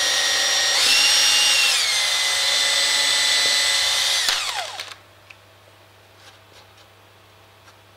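Electric drill boring through cork roadbed into the wood beneath: a steady high whine that rises in pitch about a second in, drops back, then winds down and stops a little past four seconds. A few faint ticks follow as the dust is brushed off the cork.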